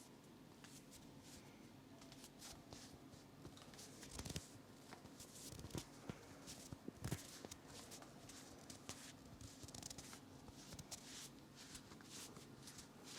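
Hands massaging a person's head, rubbing over hair and scalp: faint, irregular rustling with a couple of louder knocks about four and seven seconds in.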